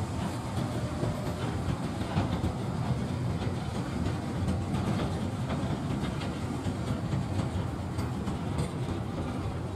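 Ballast train's empty hopper wagons rolling past: a steady rumble of steel wheels on the rails, with light clicks over the rail joints.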